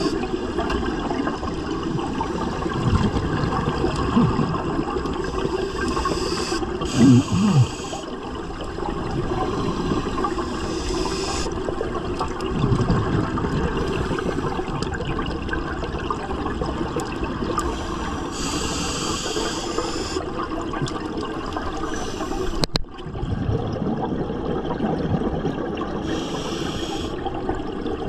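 A scuba diver breathing through a regulator underwater: several long hissing inhalations, each followed by a low bubbling rush of exhaled air. A single sharp click about three-quarters of the way through.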